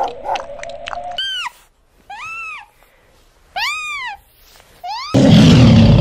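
For about the first second, a run of short calls over a steady tone carries on. Then a young husky gives four short whining yelps, each rising and then falling in pitch, about a second apart. From about five seconds in, a lion lets out a loud, rough roar, the loudest sound here.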